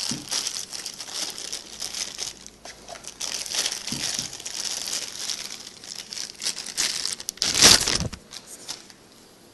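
Thin plastic packing bag crinkling and rustling as it is handled and pulled open by hand. Near the end there is a louder burst of rubbing noise, then it goes quiet.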